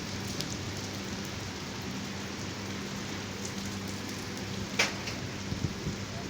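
Steady hiss of rain falling in a storm, with a faint steady hum underneath and one sharp click nearly five seconds in.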